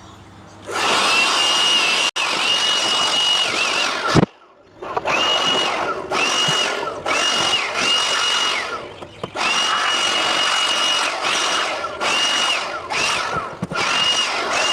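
Power tool run in repeated bursts of one to three seconds, each spinning up to a steady high whine and cutting off, with a loud knock about four seconds in.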